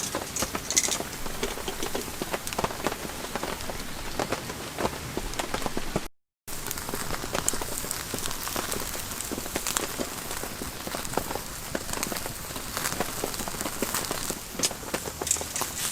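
Heavy rain falling on an all-cotton tent canvas, a steady dense spray of fine drop hits. The sound cuts out completely for a moment about six seconds in.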